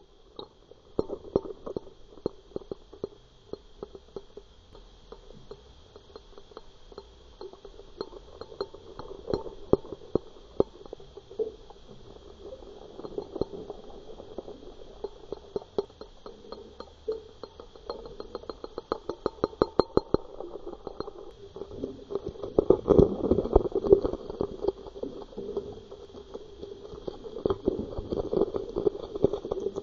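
Lures retrieved underwater, starting with a 4x4 spinnerbait: irregular clicks and ticks from its turning blades over a steady hum, rising to a fast run of clicking about two-thirds of the way in. After that a diving crankbait takes over with louder clicking and knocking.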